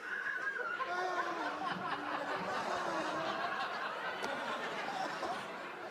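Studio audience laughing: a long, steady wash of many voices laughing together.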